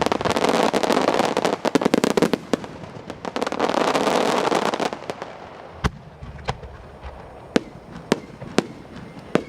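Starmine fireworks barrage: about five seconds of dense crackling and rapid bursts, then thinning out to separate sharp bangs every half-second to second.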